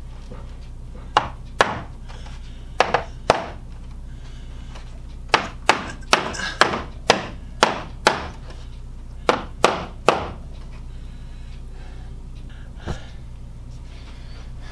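Claw hammer tapping wooden window trim up into place against the window frame. There are about sixteen sharp knocks in uneven bunches over nine seconds, then one lighter tap a few seconds later.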